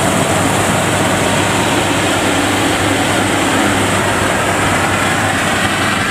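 FMWorld WD102 Pro rice combine harvester running steadily at working speed while it cuts rice: a loud, constant engine hum under an even wash of machinery noise.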